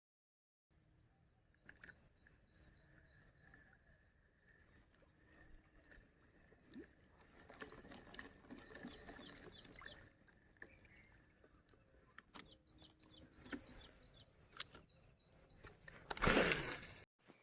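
Outdoor ambience with a bird calling in two runs of quick, evenly repeated high chirps, over a faint steady high tone and scattered clicks. A brief loud rush of noise comes near the end and cuts off sharply.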